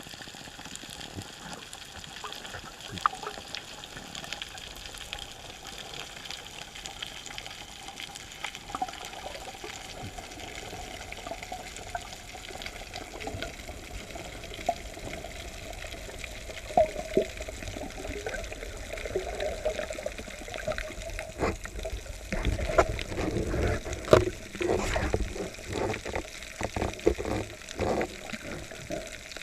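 Underwater sound picked up by a camera during a breath-hold spearfishing dive: a steady hiss with scattered clicks and crackles, then, about two-thirds of the way through, a stretch of louder knocks and low rumbling water movement.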